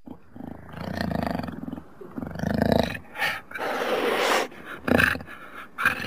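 Jaguar growling and snarling: two long growls in the first three seconds, then a run of harsher, shorter snarls.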